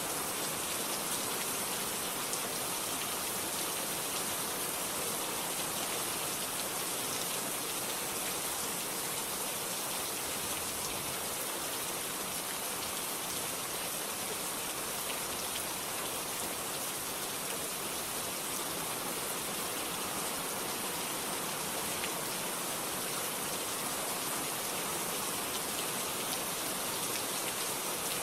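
Steady rain falling, an even hiss of many drops with faint scattered patters and no thunder.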